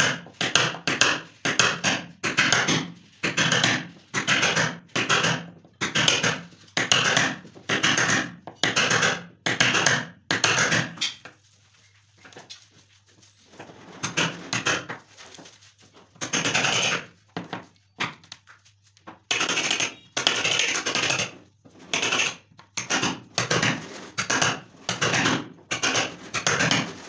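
A hammer striking a wood chisel as it is driven into a board, cutting out a recess: steady blows about two a second, then a few seconds of lighter, scattered taps in the middle before the steady blows resume.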